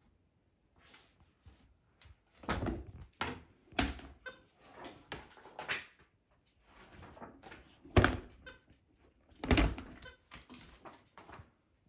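A capuchin monkey handling a stiff board book: a string of knocks and thumps as the cardboard covers and pages are flipped and slapped down, the loudest about eight seconds in. A couple of brief high squeaks come between them.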